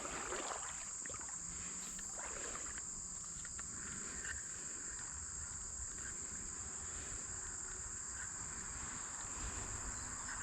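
Outdoor insect chorus: a steady, high-pitched trilling drone that holds unbroken throughout.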